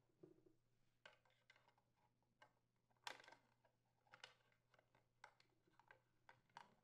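Near silence with a few faint, short clicks and taps, the clearest about three seconds in: hands and a thin wire tool handling a small plastic fuel tank at its fill spout as the fuel line and filter are fed back inside.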